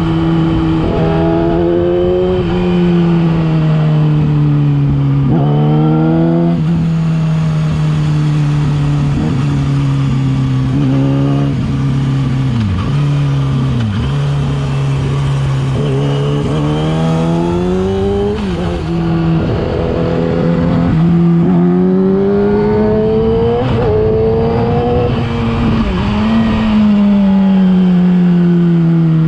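Yamaha R6 inline-four engine through a LeoVince aftermarket exhaust, under way: the revs climb and fall again and again as the bike accelerates through the gears and backs off the throttle.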